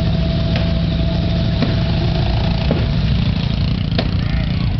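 Vehicle engine running steadily with a low hum, and a few sharp clicks or pops over it.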